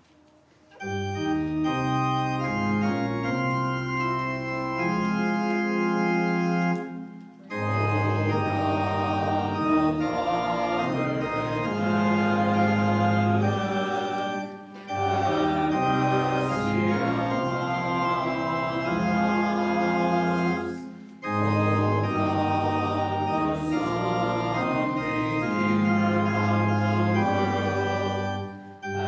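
Organ playing slow, sustained chords in four phrases of about seven seconds each, with a brief break between phrases; it begins about a second in.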